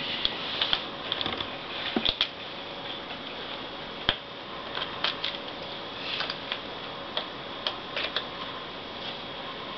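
Irregular light clicks and taps of a small screwdriver and tiny screws against a laptop's plastic screen frame while screws are being fitted, with one sharper knock about four seconds in.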